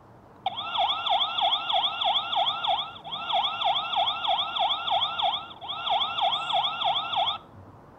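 The built-in siren of an ANRAN F1 Pro solar floodlight security camera sounding: a fast, repeating wail sweeping up and down in pitch about three to four times a second. It pauses briefly twice and stops about seven seconds in.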